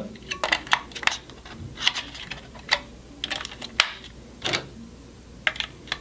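Three AAA alkaline batteries being pressed into the snug plastic battery compartment of a 2GIG SMKT3-345 smoke detector: a string of small, sharp clicks and taps at irregular intervals as the batteries seat against the contacts.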